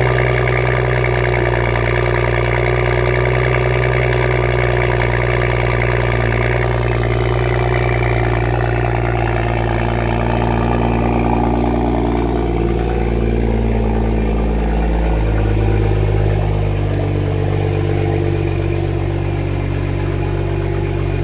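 A BMW 435i's N55 turbocharged inline-six idling just after being started. The pitch steps down about two-thirds of the way through as the idle settles lower.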